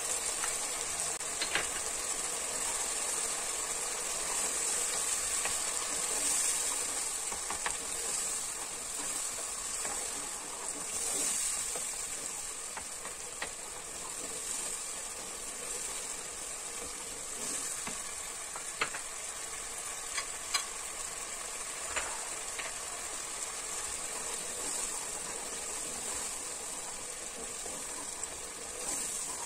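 Tomato and pepper paste sauce with melting butter sizzling steadily in a pot while a wooden spoon stirs it, with a few light clicks of the spoon against the pot.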